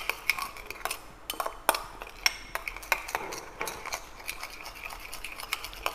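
Metal spoon stirring a fish-sauce and spice marinade in a small ceramic bowl, clinking and scraping against the bowl in quick, irregular strokes.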